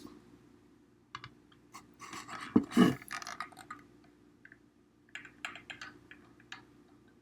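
Scattered clicks and light knocks of small objects being handled, with a louder clatter and thud about two and a half seconds in, then another run of clicks a few seconds later.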